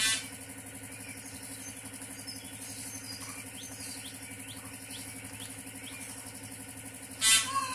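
Peahen and chicks calling: faint short rising peeps through the middle, and a loud, short call at the very start and again near the end, over a steady low hum.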